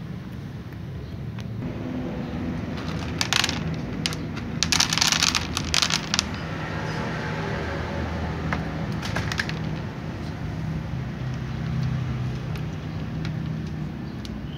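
Cats crunching dry kibble, with bursts of sharp crackling about three to six seconds in and again around nine seconds, over a steady low rumble.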